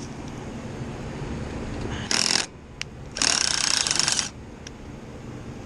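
Power driver run in two short bursts, a brief one about two seconds in and a longer one of about a second just after, on the screws of an iced-over freezer panel.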